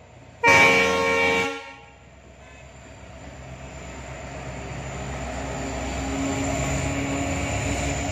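WDP-4D EMD diesel locomotive sounding one horn blast of about a second, with several tones together, half a second in. Then its two-stroke V16 engine grows steadily louder as it pulls the departing passenger train past.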